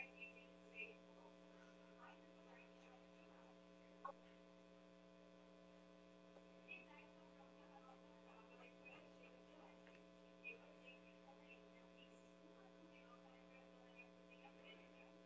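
Near silence: a steady electrical hum with a few faint clicks, the clearest about four seconds in.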